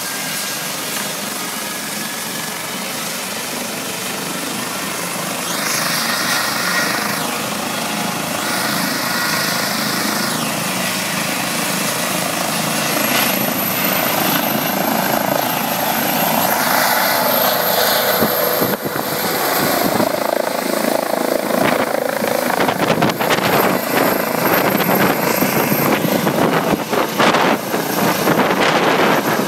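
ADAC Eurocopter EC135 rescue helicopter's turbines and rotor running up on the ground and lifting off. A steady turbine whine is joined by a higher whine about halfway through, and the rotor noise grows louder toward the end as the helicopter climbs overhead.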